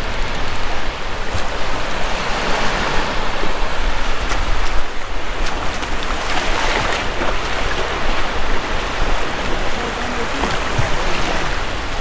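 Low surf breaking and washing over a flat sandy beach, a steady rushing noise, with wind rumbling on the microphone.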